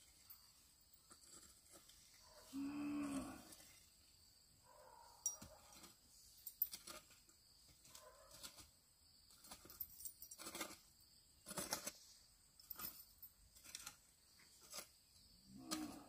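A farm animal's low call, held for about a second about three seconds in and heard again briefly near the end, among scattered light knocks and clicks.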